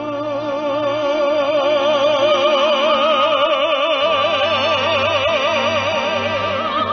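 Operatic baritone holding one long sung 'ah' with a wide, even vibrato, swelling over the first couple of seconds and then sustained.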